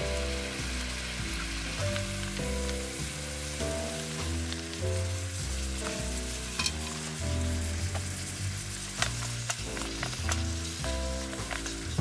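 Tomatoes, mushrooms and canned tuna in its oil sizzling in a frying pan over a camp stove, with a few sharp clicks of stirring in the last few seconds. A soft melody plays underneath.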